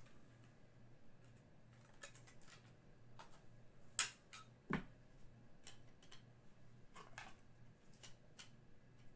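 Quiet clicks and light taps of trading cards being handled and flicked through, with a sharper snap about four seconds in and another just after, over a faint steady low hum.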